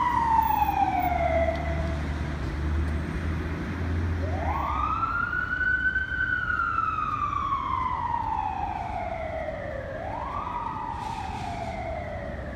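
Fire engine siren wailing. It rises quickly and falls slowly in pitch: one falling sweep, a short break about two seconds in, then two more rise-and-fall cycles. It grows fainter as the engine drives away, with a low engine rumble under the first few seconds.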